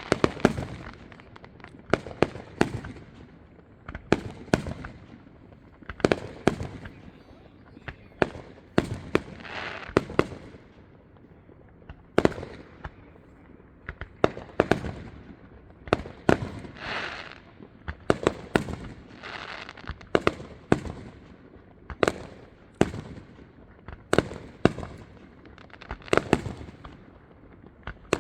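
Aerial fireworks display: shells bursting with sharp booms every second or two, some followed by crackling.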